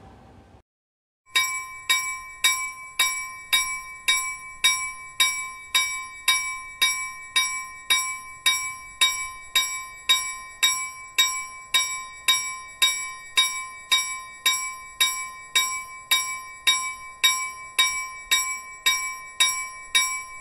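A bell struck rapidly and evenly over and over, with a sustained ringing tone under the strikes. It starts about a second in and cuts off abruptly near the end.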